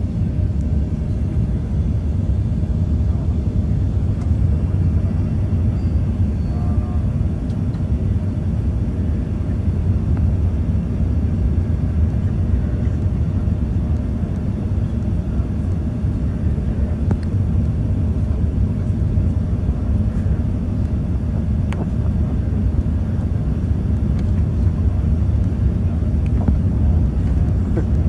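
Cabin noise inside an Airbus A380 on final approach: a steady low rumble of the engines and the air rushing past the fuselage.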